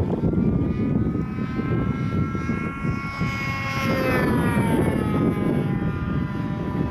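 Electric motor and propeller of a 3D-printed Zivko Edge 540 model plane whining as it taxis on grass. The pitch rises and then falls away about four seconds in, over a steady low rumble.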